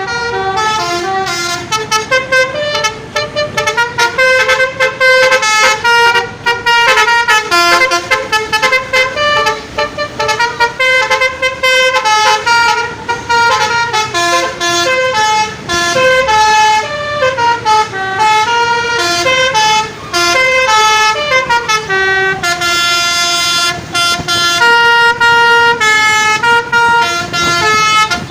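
Telolet basuri bus horn, a multi-trumpet musical air horn, playing a fast tune: loud notes stepping up and down in quick succession, broken by short gaps.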